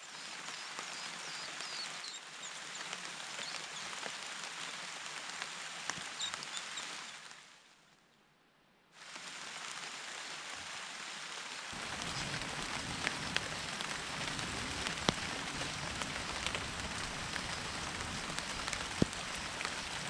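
Steady rain falling on leaves, with scattered drops tapping. It cuts out to silence for a moment about halfway through, then returns fuller, with occasional sharper drips.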